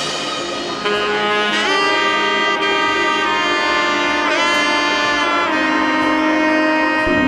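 Background music of long held notes, with a few brief slides in pitch.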